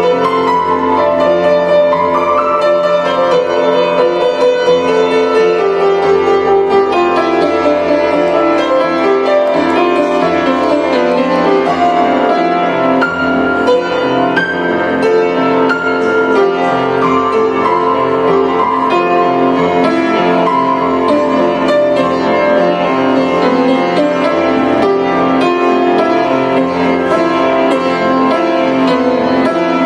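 Grand piano played with both hands, a continuous flowing stream of notes without a pause.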